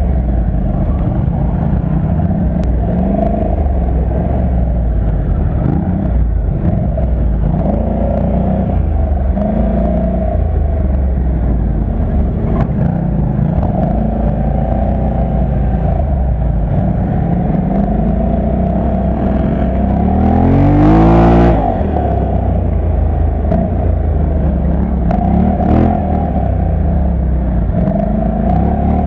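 ATV (quad bike) engine running under load over a rough dirt trail, its revs rising and falling with the terrain. About 20 seconds in the engine is revved hard, climbing steeply in pitch for a second or so.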